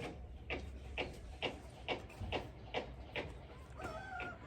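A wet puppy being rubbed dry with a towel: even swishing strokes, about two a second. Near the end comes a short high whine.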